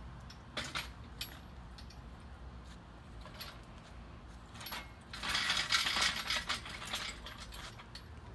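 Engine hoist being moved with an engine hanging from its chain: scattered metallic clicks and clinks, then a louder stretch of rattling about five seconds in.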